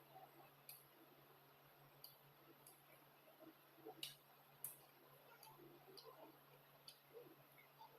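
Near silence: a faint low room hum with soft, scattered clicks at irregular intervals, about one a second, of the kind made by quiet eating and mouth sounds.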